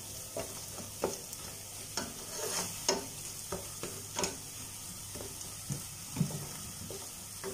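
Chopped onions with crushed ginger and garlic frying in oil in a stainless steel pan, sizzling steadily, being sautéed until the raw smell of the ginger and garlic cooks off. A wooden spatula scrapes and knocks against the pan in irregular strokes, about one or two a second.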